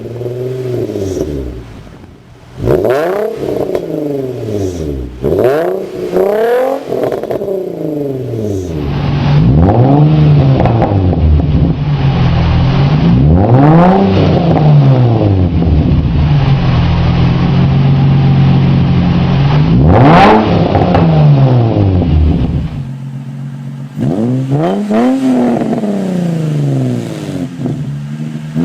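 Nissan 350Z's 3.5-litre V6 exhaust being revved over and over, the pitch climbing and dropping back with each rev. The sound changes abruptly twice, as one recording is spliced to the next.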